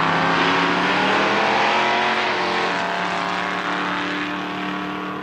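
A black Ford Mustang fastback and a second car accelerating hard from the drag-strip start line, engines at full throttle. The engine pitch rises for about two seconds, drops at an upshift, then climbs again as the sound slowly fades down the track.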